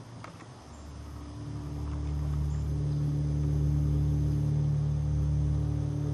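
A low, steady droning hum with a deeper rumble beneath it, swelling in over the first two seconds and then holding level. The tail of a loud hit dies away at the very start.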